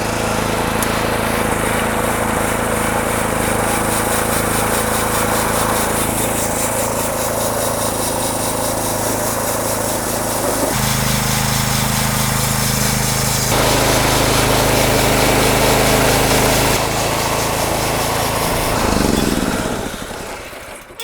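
Homemade bandsaw sawmill's small engine running steadily, its tone shifting a couple of times partway through, then falling in pitch and winding down near the end.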